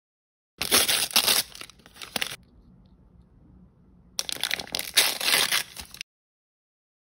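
Thin plastic blind-bag wrapper being torn open and crinkled by hand, in two crackly bursts of about two seconds each.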